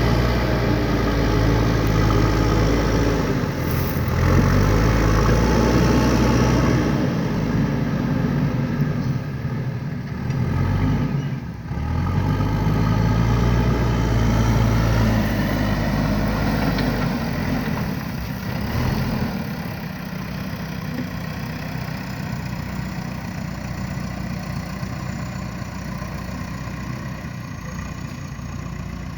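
JCB 3DX backhoe loader's diesel engine running, its pitch rising and falling several times as it works, with a brief dip about twelve seconds in. Over the last third it settles to a lower, quieter steady run.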